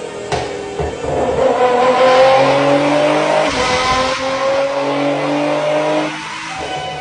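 A sports car's engine accelerating under load, its pitch climbing steadily for several seconds before it drops off near the end.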